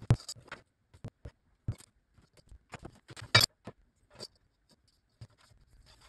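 Thin metal strips and aluminium channel being handled on a wooden workbench: scattered light clicks, taps and scrapes, with a louder clack about three and a half seconds in.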